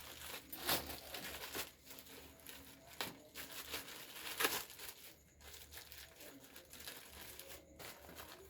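Packaging being torn open and crinkled by hand, in irregular rips and rustles, loudest about three-quarters of a second in and again about four and a half seconds in.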